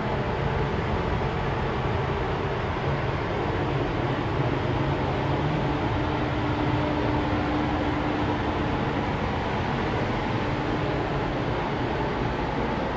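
Steady rushing air and fan noise of a spray booth's ventilation running, with a faint hum that comes and goes past the middle.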